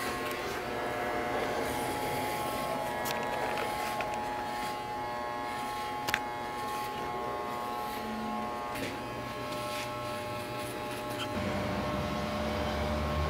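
Corded electric hair clippers buzzing steadily as they shave a head close to the scalp, with one sharp click about halfway through.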